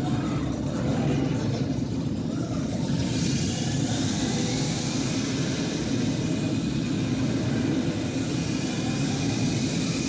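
Motion-simulator ride film soundtrack played loudly over theatre speakers: a steady, deep rumble of an animated jet plane flying low through a canyon, with a rushing hiss of speed coming in about three seconds in.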